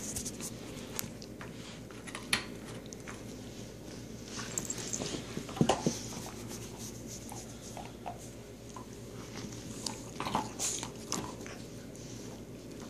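Dog chewing and mouthing a plush toy, with scattered soft clicks and rustles and a louder knock about halfway through, over a steady low hum.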